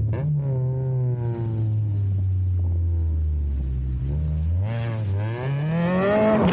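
Honda K24 four-cylinder engine in a CR-V being driven under load. It revs up briefly at the start, holds and slowly eases off, dips about five seconds in, then climbs to its highest revs near the end.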